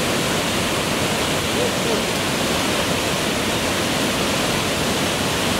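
Auger Falls on the Sacandaga River: a large volume of whitewater pouring down steep rock chutes, a steady rushing of water that keeps the same level throughout.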